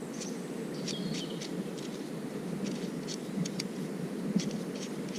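Small birds chirping in short repeated phrases over a steady low rumble, with a single brief knock about four seconds in.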